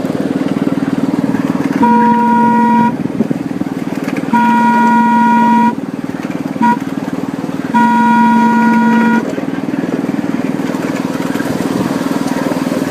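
Horn on a ride-on miniature railroad locomotive blowing four times, long, long, short, long: the standard grade-crossing signal. A small engine runs steadily underneath.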